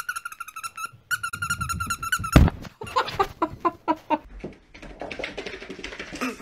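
An animal's high-pitched trilling calls: two long fluttering trills in the first two seconds, a sharp knock, then a run of short chirping calls.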